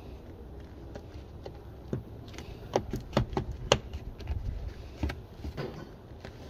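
Sharp plastic clicks and taps as a gloved hand presses a tailgate close-button switch into the liftgate's plastic trim panel. About half a dozen clicks come in a cluster in the middle, with fainter taps after.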